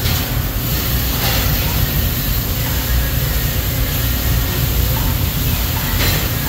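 Steady loud rushing noise with a deep rumble underneath, unchanging throughout, typical of the background of a working fabrication shop.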